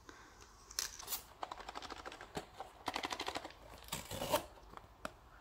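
Small cardboard blind box being opened by hand: a run of quick clicks and rustles as the card flaps are pulled open, densest about three seconds in.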